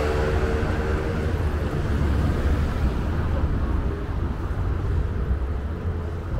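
Night city street ambience dominated by a steady low rumble, with a faint pitched hum dying away in the first second.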